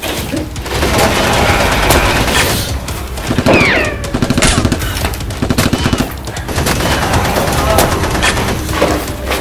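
Bursts of rapid automatic-gunfire sound effects, several volleys in quick succession, dubbed in for Nerf blaster shots.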